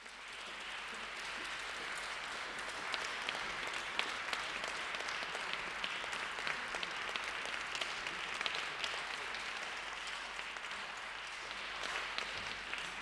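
Audience applause, a dense patter of many hands clapping that builds within the first second, holds steady and starts to fade at the very end.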